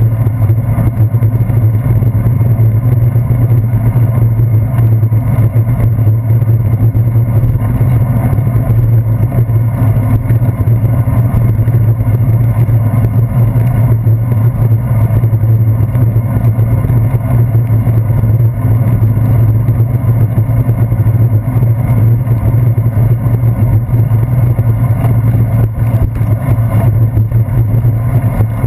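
Steady, loud low drone and rumble from a bicycle rolling along wet pavement, picked up through a handlebar-mounted GoPro's waterproof housing.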